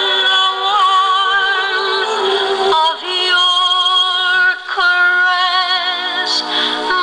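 HMV Model 101 portable wind-up gramophone with a No. 4 sound box playing a 78 rpm shellac vocal record: a singer holds long, wavering notes. The sound is thin and has no bass.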